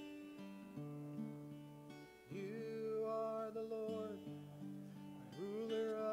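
Acoustic guitar strumming the chords of a slow worship song, with a man's voice rising into a long held sung note about two seconds in and another near the end.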